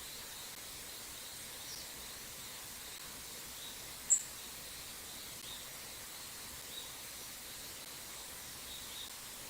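Steady rushing of a small mountain stream with faint, scattered high chirps, and one short, sharp, high bird call about four seconds in.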